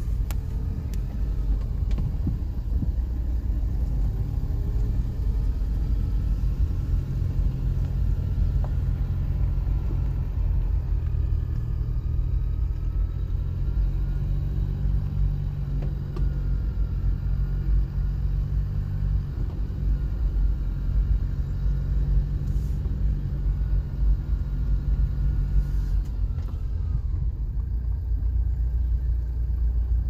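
Steady low rumble of a car driving, heard from inside the cabin: engine and tyre noise on the road, with a faint wavering whine above it.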